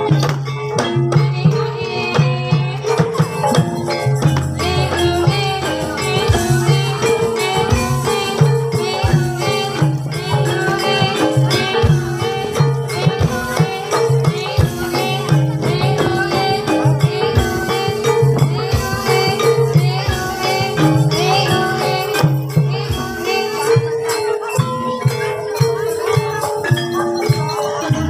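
Live Javanese gamelan accompaniment for an ebeg hobby-horse dance: tuned metal percussion playing repeating stepped notes over a low sustained gong-like tone, with frequent sharp drum and rattle strokes.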